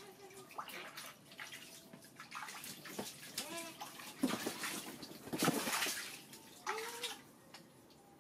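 Water splashing and sloshing in an inflatable paddling pool as a hand and a monkey's paw slap and stir the surface, in uneven bursts that are loudest a little past the middle. A few short vocal sounds come in between.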